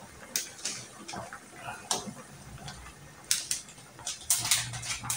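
Scattered light clicks and clinks of a metal spoon against a pan and utensils, a handful of sharp ticks with a quick cluster near the end.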